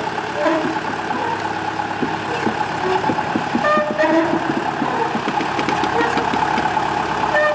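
Small narrow-gauge diesel locomotive's engine running steadily, with short high squeals and a run of sharp clicks and clanks about two to five seconds in.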